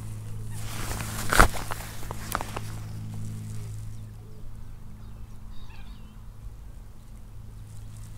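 Spinning rod and reel being fished with a lure: a sharp impact about a second and a half in, followed by a few lighter clicks. After that comes a low steady hum with a few faint bird chirps near the middle.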